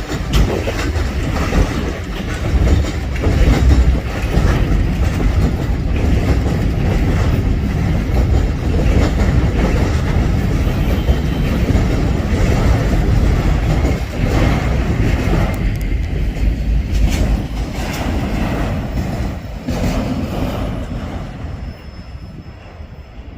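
Freight train rolling past, its wheels clacking over the rail joints with some wheel squeal, over a steady heavy rumble. It fades away near the end.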